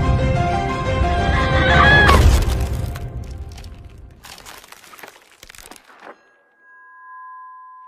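Film soundtrack: held orchestral music swells to a sudden crash about two seconds in, followed by a spray of cracking and shattering ice that fades away over the next few seconds. Near the end comes a steady two-note electronic beep.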